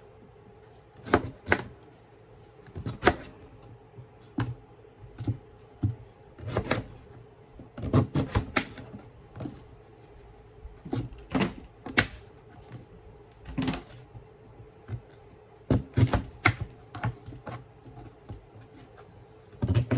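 Knife chopping sweet potatoes on a cutting board: irregular sharp knocks of the blade striking the board, a second or two apart, some in quick pairs.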